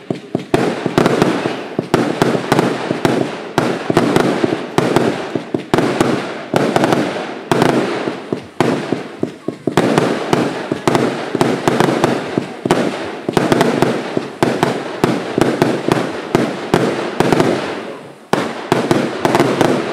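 Fireworks going off in rapid succession, several sharp bangs a second with little pause between them, stopping suddenly at the end.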